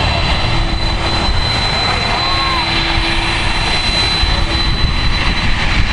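Boeing 747's jet engines running at idle: a steady high whine over a dense low rumble.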